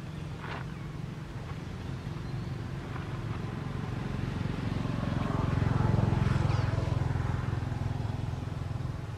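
A motor vehicle engine passing by: a steady low hum that grows louder to a peak about six seconds in, then fades.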